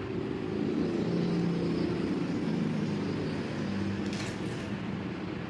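Electric fan running with a steady hum, and a short rustle of paper about four seconds in.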